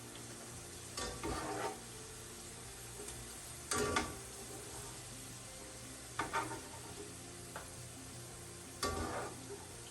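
Purple snap beans frying in hot oil in a pan with a faint steady sizzle, stirred four times in short scraping bursts, roughly every two and a half seconds.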